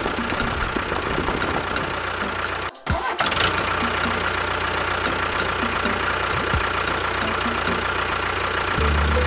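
Steady engine-like running sound of a small tractor, with faint regular ticking and a brief cut about three seconds in. Steady musical tones come in near the end.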